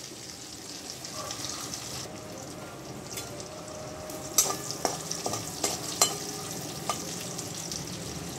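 Cashews, raisins and a bay leaf sizzling in hot ghee in a metal wok. A metal spatula stirs them, scraping and knocking against the pan several times about halfway through, each knock ringing briefly.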